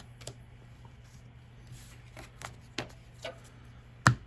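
Magic: The Gathering trading cards being flipped through by hand: a scattering of soft card snaps and slides, with one sharper, louder click near the end.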